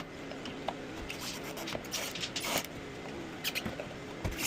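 Screwdriver scraping and prying at a plastic nail-on electrical box in drywall, with light scrapes and small clicks now and then as the box is worked loose from its nail.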